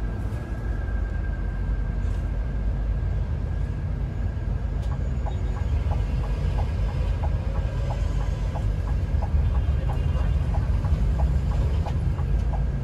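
Cabin noise of a Scania K410 coach under way: a steady low rumble from its straight-six diesel and the road. From about five seconds in, the turn-signal indicator ticks a little under twice a second while the bus turns at a junction.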